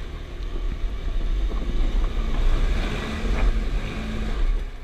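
A Jeep crawling slowly over a rough, rutted trail: a steady low engine and drivetrain rumble heard from inside the cab, with rustling and scraping noise from brush against the body that swells about three seconds in.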